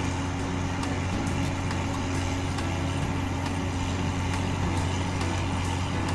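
Engine of a heavy vehicle running steadily with a low, even hum.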